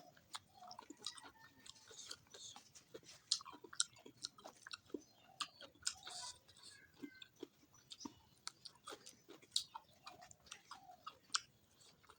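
Close-up chewing of a person eating a meal: repeated wet mouth smacks and short clicks at an irregular pace.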